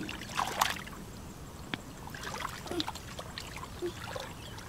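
Hands sloshing and groping through shallow muddy water, with small scattered splashes and trickles and a brief sharp click near the middle.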